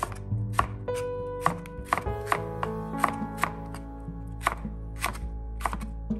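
Chef's knife slicing thick green onions on the bias on a plastic cutting board: a sharp knock of the blade on the board with each cut, about two a second, unevenly spaced.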